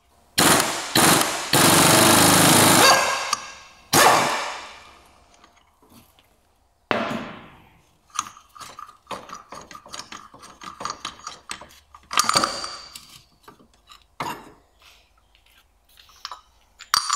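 Impact wrench hammering loose the crankshaft pulley bolt: two short blips, a run of about a second and a half, then another short burst about four seconds in. Scattered metallic clicks and clinks follow.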